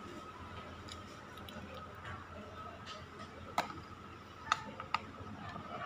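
Metal spoon and fork clinking and scraping on a plate while eating, with three sharp clinks in the second half.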